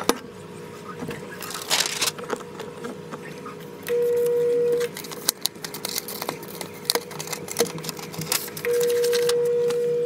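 A heat press's electronic timer alarm sounds as a steady single-pitched tone, twice: about a second long near 4 s in, and about a second and a half long near the end. Between and around the tones, paper rustles and crinkles as the sublimation transfer paper is peeled off the pressed piece.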